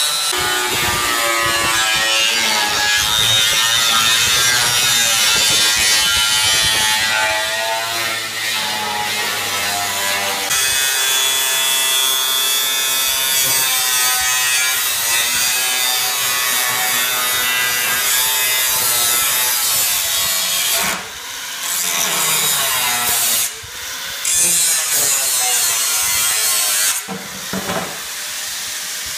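Corded angle grinder with a cutoff disc cutting through a steel tank, a loud, continuous grind whose pitch shifts with the load. The cut breaks off briefly twice about two-thirds of the way through and eases off near the end.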